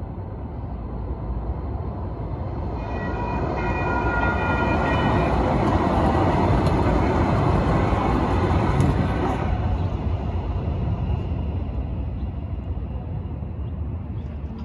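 Sacramento Regional Transit light rail train passing over a street crossing: the rumble of its wheels on the rail builds, peaks in the middle and fades away, with a steady high whine while it is closest.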